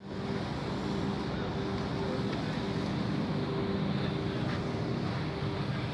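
Heavy-duty manual lathe running with a steady hum at a constant pitch, over an even mechanical noise.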